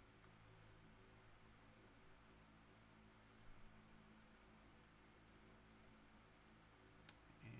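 Near silence over a faint steady hum, broken by a handful of faint computer mouse clicks, the loudest one near the end.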